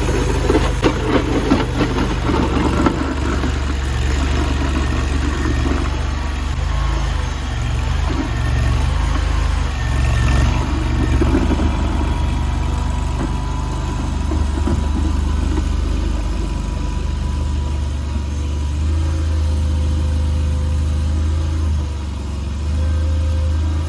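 Mini stand-on skid steer's 739cc engine running steadily, with clanks and rattles in the first few seconds.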